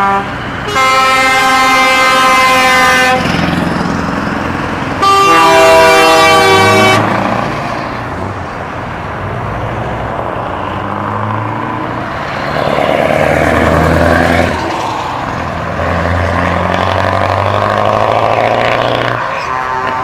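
Truck air horns blasting twice, each a few seconds long with a chord of several tones. Then a heavy truck diesel engine runs through open, unsilenced exhausts and is revved up twice.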